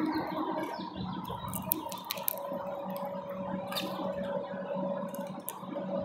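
Sharp scattered clicks of a male house finch pecking and cracking seed on a tray feeder, over a steady low hum.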